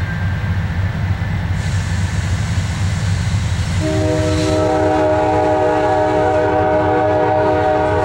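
Nathan K5LA five-chime air horn on a Norfolk Southern GE C40-8 locomotive, sounding one long held chord starting about four seconds in. Under it is the steady low rumble of the approaching train.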